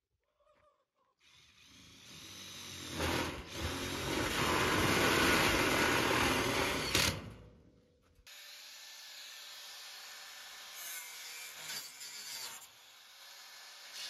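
Power drill driving a screw through steel sheet-metal trim into the wooden door frame. The drilling builds over several seconds and stops sharply about eight seconds in, leaving a quieter background with a few light knocks.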